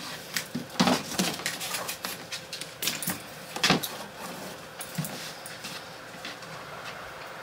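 Hands untying the ribbon and opening a cardboard gift box: rustling and scraping with scattered clicks and taps, the loudest knocks about a second in and near four seconds, growing quieter in the last couple of seconds.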